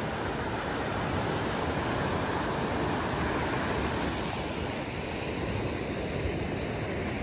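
Steady rushing noise of sea surf and wind at the shore, with no breaks.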